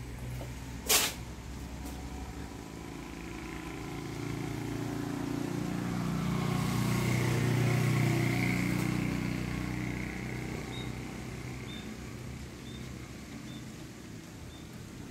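A road vehicle passing by, growing louder over several seconds to its loudest about halfway through, then fading away. A single sharp click about a second in is the loudest moment.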